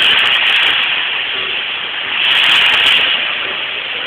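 Castillo fireworks burning with a continuous spraying hiss that swells about every two seconds.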